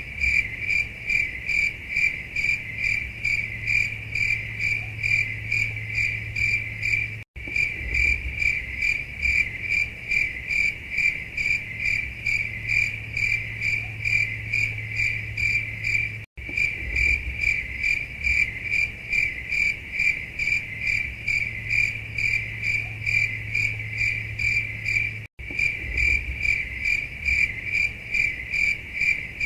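Crickets chirping in a steady, rapid pulsing rhythm: the stock 'awkward silence' cricket effect. The looped recording cuts out for a split second three times, about every nine seconds.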